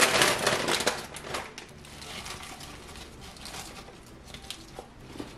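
Crisp rustling and crackling of fresh baby spinach leaves being pushed down by hand into a plastic food processor bowl, loudest in the first second or so, then fainter scattered crackles.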